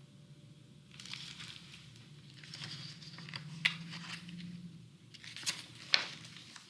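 Paper rustling and crinkling as a picture book's pages are handled and turned, with a few sharp ticks in the second half.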